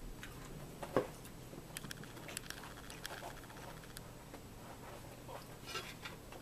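Quiet table sounds of a meal: small scattered clicks of a fork and plates, with one louder knock about a second in as a drinking glass is set down on the wooden table.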